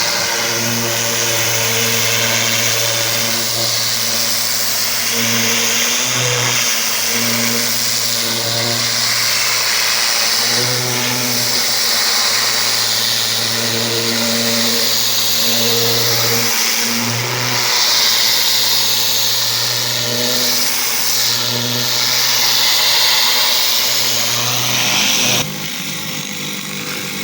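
Pressure washer's gas engine running steadily under the loud, shifting hiss of the high-pressure water jet spraying during rinsing. Both drop away suddenly near the end.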